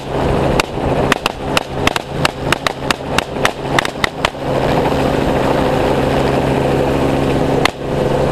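Rapid semi-automatic rifle fire, about four shots a second for roughly the first four seconds, over the steady drone of a helicopter's engine and rotor. After that only the helicopter runs, with one more shot near the end.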